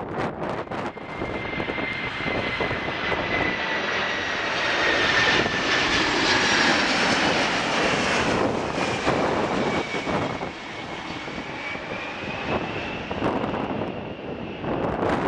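Boeing 747-400 jetliner on landing approach passing low overhead, its four Pratt & Whitney PW4056 turbofans making a loud jet rumble with a high whine that falls in pitch as it goes over, loudest about six seconds in; a second, fainter whine follows as it moves away. Wind buffets the microphone near the start and end.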